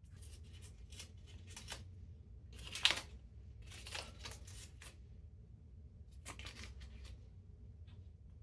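Parrot tearing paper with its beak in a string of short rips, the loudest about three seconds in.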